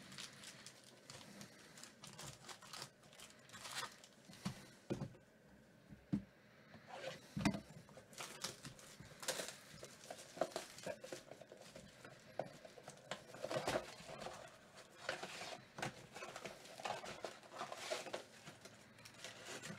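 Foil trading-card packs crinkling and tearing open by hand, then a stack of cards rustling and clicking as they are shuffled and flipped through. Irregular rustles with scattered sharp taps, the loudest about six and seven and a half seconds in.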